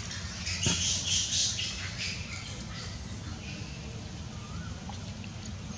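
Baby macaque giving high squeaky calls for about the first two seconds, then quieter.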